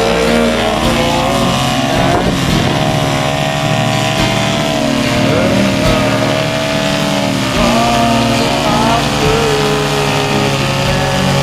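Aircraft engines running, their pitch rising and falling in slow swells over a steady low drone.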